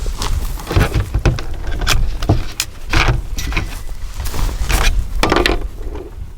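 A run of short clicks, knocks and metallic rattles, about a dozen of similar strength, from a rifle and its ammunition being handled while being readied to fire.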